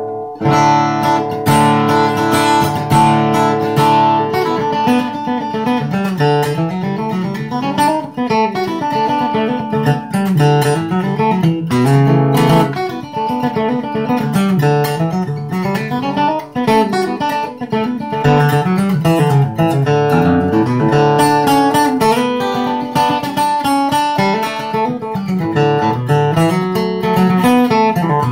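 Steel-string dreadnought acoustic guitar flatpicked with a triangular pick, playing a bluegrass-style passage of strummed chords with bass-note runs in between.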